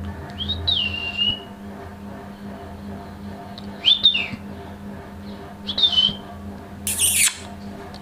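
Indian ringneck parakeet giving four short high-pitched calls. The first, about half a second in, glides up and is held briefly. Two quicker calls follow around four and six seconds, and a harsher screech comes near the end.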